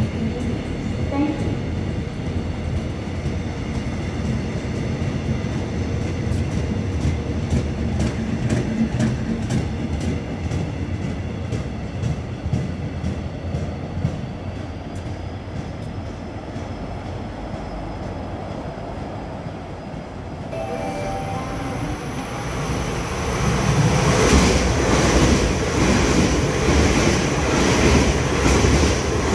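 A Korail passenger train rolls away along the platform, its wheels clicking over the rail joints. From about two-thirds of the way in, a KTX high-speed train comes through the station at speed, a growing rush of wheels and air that is loudest near the end.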